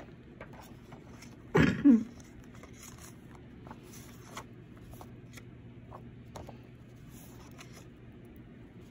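A quick two-part cough about a second and a half in. Faint scattered rustles and taps of paper sheets being handled follow.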